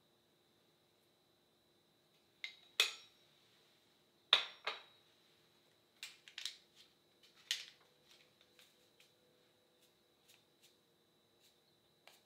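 Metal spoon and a canister's metal lid clinking against a stainless steel mixing bowl while dry ingredients for pizza dough are spooned in: a few sharp clinks in the first half, then a run of lighter taps and clicks as the spoon stirs.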